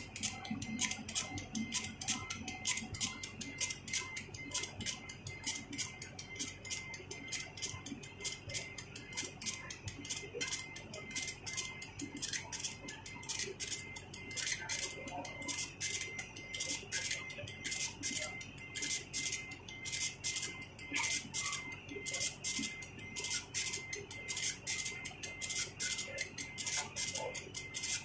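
CNC milling machine cutting metal: a steady high-pitched tone with a fast, even ticking over it and some light clatter.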